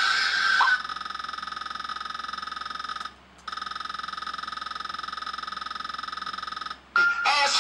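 Electronic buzzer or alarm sounding: a harsh, high buzz that pulses very fast, in two long stretches with a short break between them.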